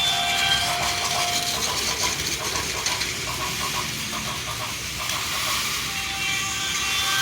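Battery-powered Plarail toy trains running on plastic track, a steady whirring hiss of motors and wheels. Over it, electronic sound-effect tones from the layout: a held tone at the start that stops about a second and a half in, quick repeated short blips around two to three seconds in, and another held tone from about five seconds in.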